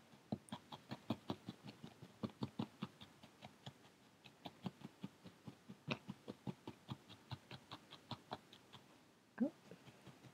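A barbed felting needle stabbing repeatedly through wool into a foam felting pad: a quick run of soft taps, about five a second, that stops near the end.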